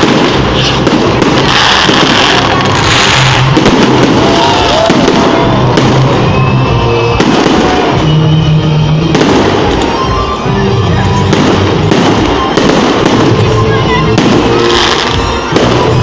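Fireworks going off in rapid, continuous bangs and crackles, with music playing underneath.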